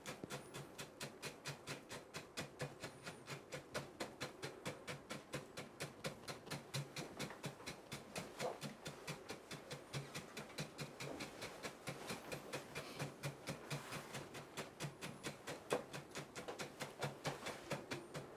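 A wooden stick tapping quickly and evenly into black burst-charge pellets in a paper-lined shakudama firework shell, about four taps a second, packing the charge down.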